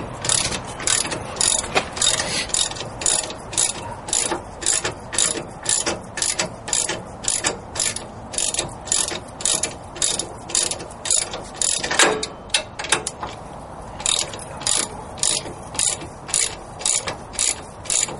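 Ratchet socket wrench clicking in quick, even strokes, about two a second, as the already-loosened wheel hub assembly mounting bolts are turned out. One sharper knock about twelve seconds in.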